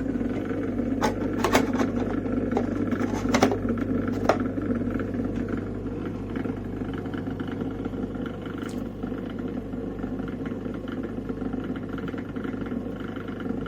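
Mini countertop dishwasher running: a steady motor hum, with a few sharp clicks or knocks in the first few seconds.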